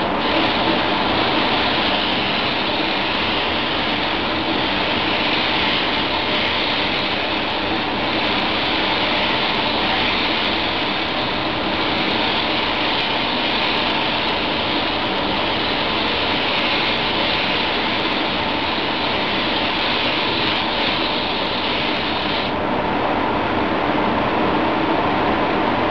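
SATAjet 4000 paint spray gun hissing steadily as compressed air atomises the paint, with a steady rush of booth air beneath. The hiss cuts off a few seconds before the end, leaving only the rush.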